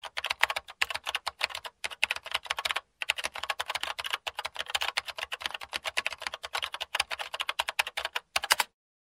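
Computer keyboard being typed on quickly: a rapid, uneven run of keystroke clicks with a few brief pauses.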